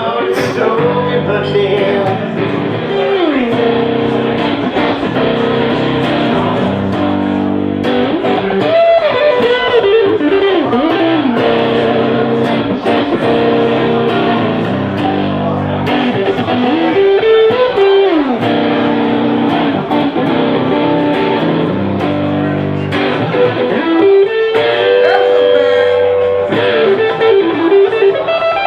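Live electric blues instrumental: an electric guitar plays lead lines with repeated string bends that slide up and down in pitch, over a steady accompaniment.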